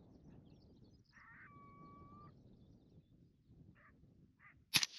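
A single rifle shot near the end, sudden, sharp and the loudest sound, followed by a fading echo. About a second in, a steady high whistle-like tone lasts about a second. A few faint short chirps come before the shot.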